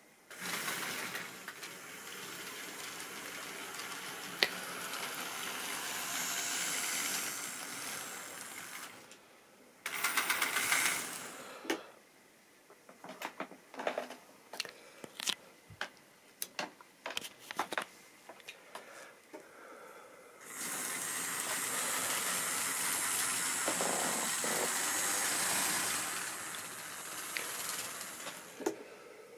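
Tri-ang model train running on its track: the small electric motor and metal wheels make a steady whirring run, broken by quieter stretches of separate clicks as the wheels pass rail joints and points. Two long spells of steady running, the second starting about twenty seconds in.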